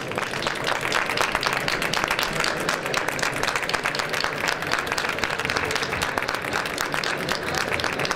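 Audience applause, dense hand-clapping that builds over the first second and then holds steady.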